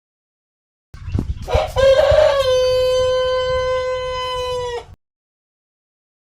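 A rooster crowing one long crow: a few short rising notes lead into a long, steady held note of about two and a half seconds, which cuts off sharply.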